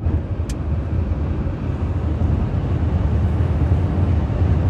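Steady road and wind noise from a vehicle travelling at highway speed, a heavy low rumble under an even rushing hiss.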